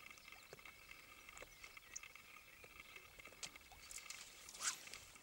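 Faint lakeshore ambience: a steady high-pitched hum with scattered small clicks, and one brief louder rustle or swish near the end.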